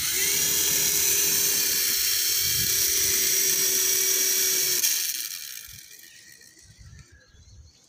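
Mini infrared RC toy helicopter's electric motors and coaxial rotor blades spinning up quickly to a steady high whine, held for about five seconds, then winding down as the throttle is cut.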